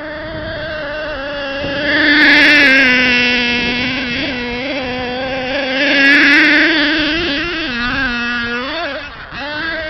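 Small nitro engine of a Kyosho Giga Crusher RC monster truck running at high revs as it drives on sand. The pitch dips and climbs again several times with the throttle, and the engine gets louder around two seconds and six seconds in.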